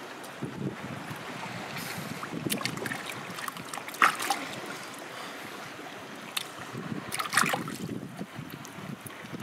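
Shallow water splashing and dripping as hands rinse and squeeze a sea cucumber, with the sharpest splash about four seconds in and a cluster more near the end, over a steady rush of wind and moving water.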